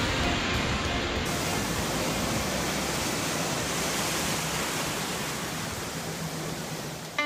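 Ocean surf: a wave breaking and foaming white water rushing through the shallows, a steady rush that eases slightly near the end.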